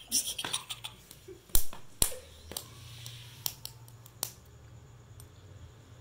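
A run of sharp clicks and taps over a low room hum, the two loudest about a second and a half and two seconds in, with fainter ticks after.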